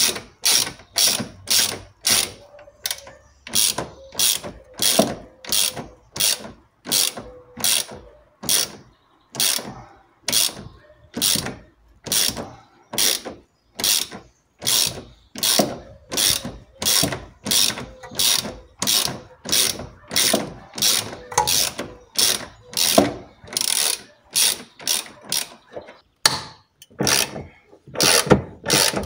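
Hand socket ratchet wrench clicking in quick repeated back-swings, about two strokes a second, as a rear suspension bolt is undone.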